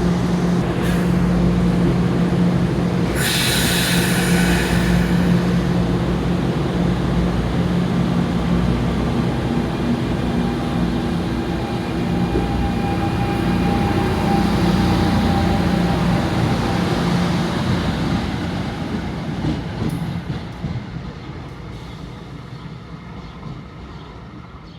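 NJ Transit Multilevel III electric multiple-unit train running through the station with a steady electric hum and rumble. There is a burst of air hiss about three seconds in, and the sound dies away over the last several seconds as the train moves off.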